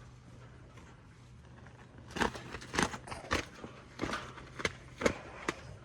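Irregular sharp footfalls in a livestock pen: about nine steps, roughly two a second, starting about two seconds in after a quiet start.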